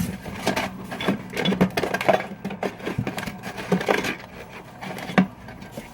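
Hands playing with slime: irregular small clicks, taps and squishes.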